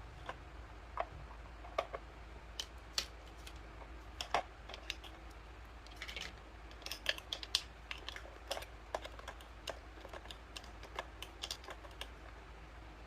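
Small plastic toy kitchen pieces being handled: irregular light clicks and taps of plastic on plastic, busiest in the second half, over a faint low steady hum.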